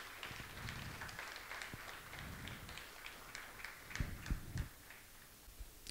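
Light, scattered audience applause that thins out after about three seconds, then a few dull low thumps.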